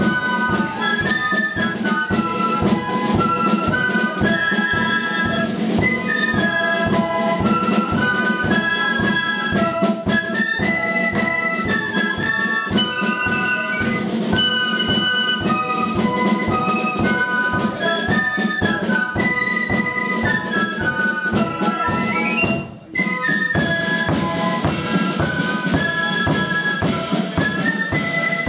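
A military flute-and-drum band (corps of drums) plays a tune: the flutes carry the melody in unison over rapid snare drumming and bass drum. Near the end a quick rising run leads into a half-second break, and then the band carries on playing.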